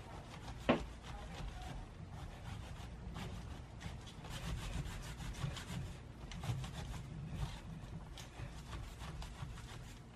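Hands rolling and kneading soft, heat-wilted fresh tea leaves against a woven bamboo sieve: a continuous rustling scrape of leaves and palms over the bamboo in quick back-and-forth strokes. This is the hand-rolling stage of homemade green tea. A single sharp click sounds under a second in.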